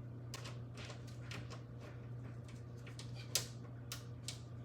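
Small, irregular clicks and taps of a screwdriver and screws working on a PC case fan, with one sharper click a little after three seconds in, over a steady low hum.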